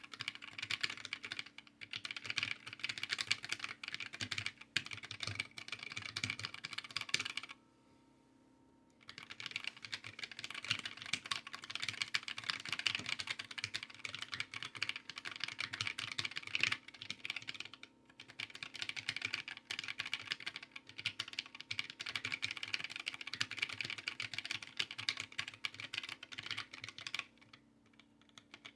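Fast, continuous typing on a small handwired mechanical keyboard: a rapid stream of key clacks. It pauses for about a second and a half roughly a quarter of the way in, then resumes.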